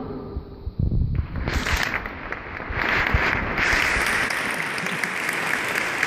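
The choir's final chord dies away in the cathedral's echo. Then, about a second and a half in, the audience breaks into applause, which builds and keeps going.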